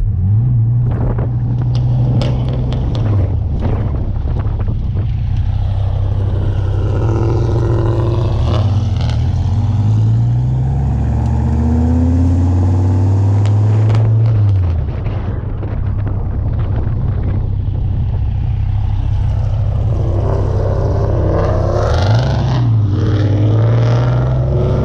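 Car engine driving under way: a low steady drone with road noise, easing off about fifteen seconds in and climbing again with acceleration near the end.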